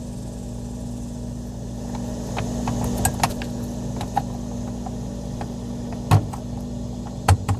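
Clicks and taps of the ice maker's plastic timer parts being handled and set back in place, with a louder knock about six seconds in and a few quick ones near the end, over a steady low hum.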